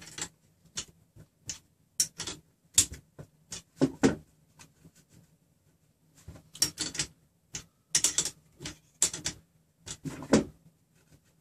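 Irregular light clicks and knocks of metal parts being handled: hex nuts on a threaded steel rod of a RepRap Prusa Mendel frame being turned by hand while the frame spacing is checked with a wooden measuring stick. There is a short pause in the middle.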